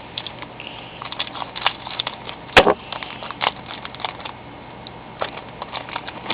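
Crinkling and crackling of a trading-card pack being opened and the cards handled, with irregular small clicks and one sharp snap about two and a half seconds in.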